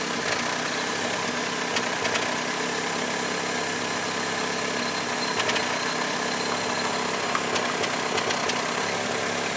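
Toyota Celica's four-cylinder engine idling steadily, heard from underneath the car by the exhaust, with a few faint ticks over the even hum.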